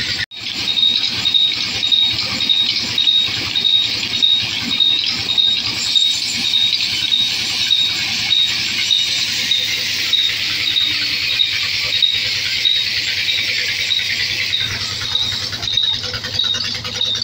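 Large belt-driven band saw running and cutting logs: a steady high-pitched hiss and whine with a regular high pulse over it.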